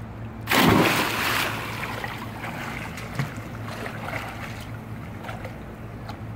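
A child jumping into a swimming pool: a loud splash about half a second in, then water sloshing and churning as she moves underwater, over a steady low hum.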